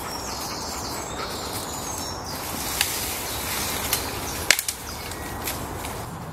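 Woodland birds chirping over steady background noise, broken by a few sharp knocks or snaps, the loudest a quick cluster about four and a half seconds in.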